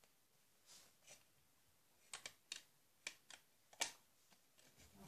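Faint, scattered small clicks and taps of a Rainbow Loom hook working rubber bands on the plastic loom, about eight of them, the sharpest a little before four seconds in.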